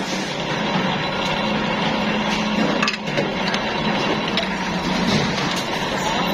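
Motor-driven roller flanging machine running with a steady hum while a sheet-metal air-filter cup is pressed against its spinning rollers, with crackly metal scraping and rattling.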